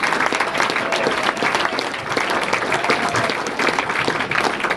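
Small audience clapping, sustained applause at the end of a recited poem.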